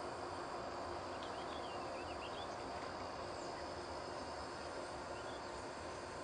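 Insects trilling steadily over an even, low background noise, with a few short bird chirps between about one and three seconds in.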